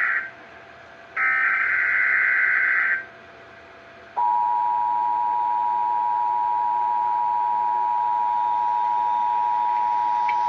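Emergency Alert System SAME header data bursts: the tail of one screeching digital burst, then another lasting about two seconds. About four seconds in, the steady two-tone EAS attention signal starts and holds, sounding the start of a tornado watch alert.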